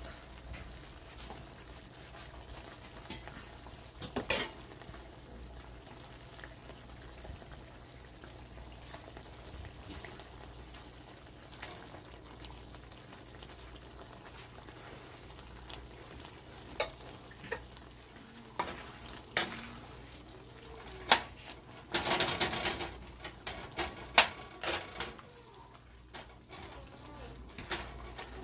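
Goat stew simmering and bubbling in a wok, with a metal ladle clinking and scraping against the pan as it is stirred. The knocks are sparse at first and cluster in the second half, loudest about three-quarters of the way through.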